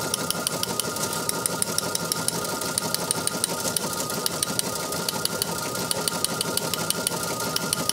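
Teletype Model 28 KSR printing received radio-teletype copy: a fast, even mechanical clatter of about six strokes a second, one stroke per character. Under it are the two steady tones of the RTTY signal (mark and space) from the receiver's speaker.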